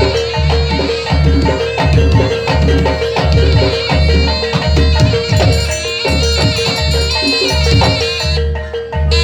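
Traditional East Javanese music: a melody on ringing mallet percussion over a steady drum beat of about two beats a second. The high notes drop out briefly near the end while the beat carries on.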